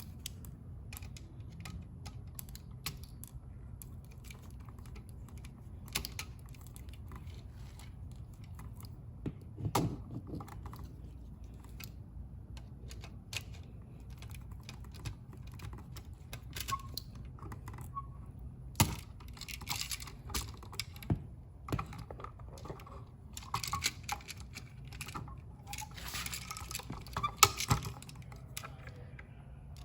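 Irregular small clicks, taps and scrapes from hands wiring a GFCI outlet, the wires and the outlet's plastic and metal being handled and fitted, busier in the second half, over a steady low hum.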